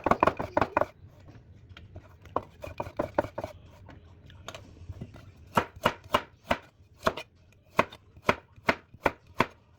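Knife chopping on a cutting board: a quick flurry of cuts at the start, a few scattered strokes, then steady chops about two a second in the second half.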